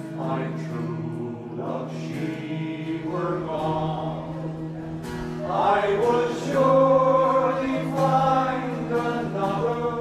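A choir singing a slow song over a steady held accompaniment.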